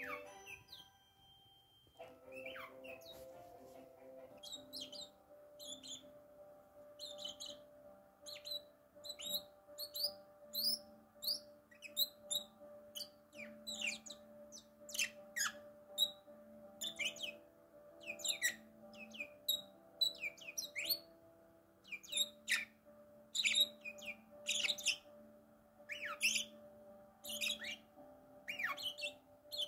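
Bourke's parakeets chirping: a quick, irregular run of short, high chirps sliding downward, starting about two seconds in. Soft sustained music plays underneath.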